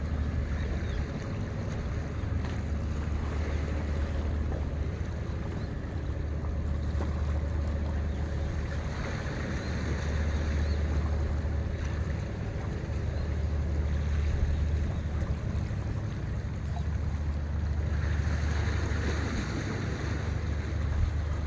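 Wind blowing across the microphone, a steady low buffeting over an even wash of wind and sea, with a faint steady hum underneath.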